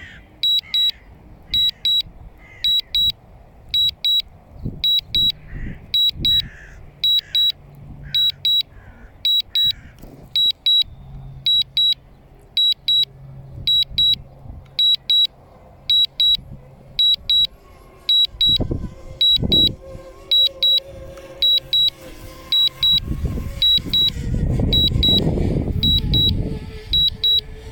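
DJI Mavic Mini remote controller beeping during Return to Home: quick clusters of short high beeps, repeating evenly about one and a half times a second. Over the last few seconds a loud low rumble of wind on the microphone joins in.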